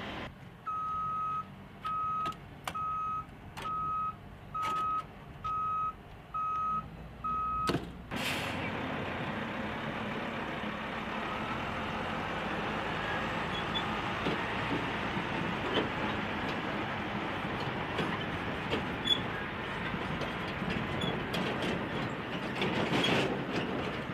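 A heavy truck's reversing alarm beeps eight times, about once a second. It then gives way to a heavy military truck running, with the clanks and rattles of the trailer and chained load.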